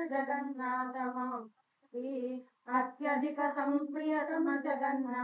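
A woman singing Kannada devotional verses in a slow, steady chanting melody, in long held phrases with two short breaks for breath, heard over a video call.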